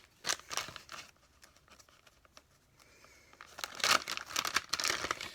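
Plastic packaging of soft plastic crawfish baits crinkling as it is handled, in a short spell early and a louder, denser spell about four seconds in.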